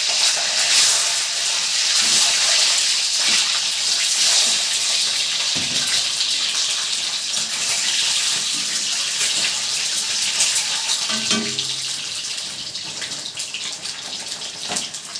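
Peeled boiled eggs sizzling in hot oil in a kadai, a steady loud sizzle that slowly eases toward the end. A spatula knocks against the pan a few times.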